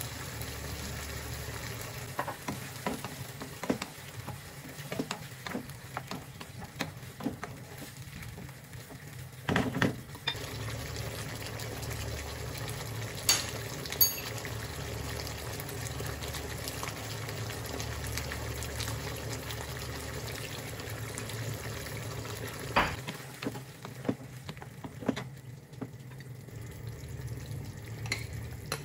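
Chicken pieces in tomato sauce sizzling and simmering in a stone-coated wok, with a steady frying hiss. A spatula stirs the food and knocks against the pan now and then, with a few louder clatters.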